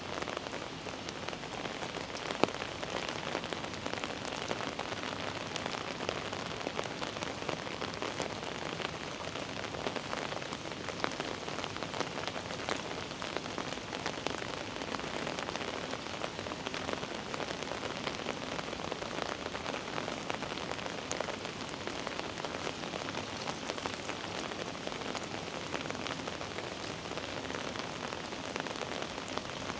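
Heavy rain falling steadily: a continuous hiss dense with the patter of individual drops, with one sharper tap about two and a half seconds in.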